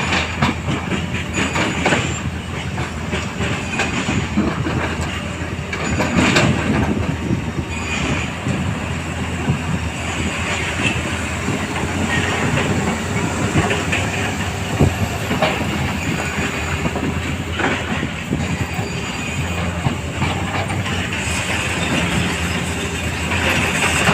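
Hydraulic excavator working stone: its diesel engine running steadily under repeated metallic clanks, knocks and squeals from the bucket, tracks and rock.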